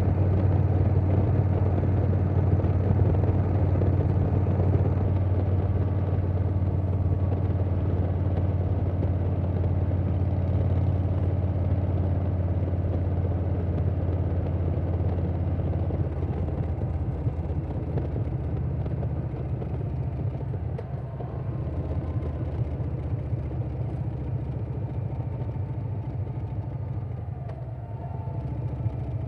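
Harley-Davidson Softail Standard's Milwaukee-Eight V-twin running at steady cruise through a Vance & Hines Big Radius 2-into-2 exhaust, heard from the moving bike with wind noise. The engine note eases off a little about halfway through, as if the throttle is rolled back.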